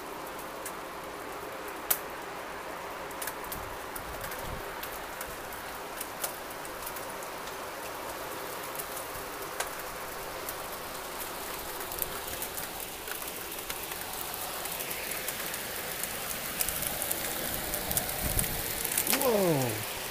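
Hail and rain falling on lawn, pavement and a porch deck: a steady hiss of rain peppered with sharp ticks of hailstones striking. It grows louder and denser toward the end.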